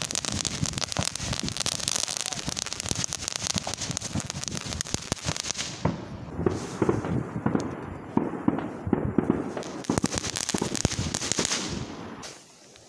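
Ground firework on the road crackling densely with a hiss, then a run of louder rapid pops, stopping abruptly near the end.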